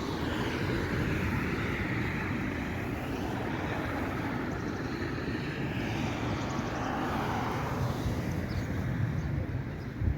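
A steady vehicle rumble that swells and fades slowly, with no single sharp event.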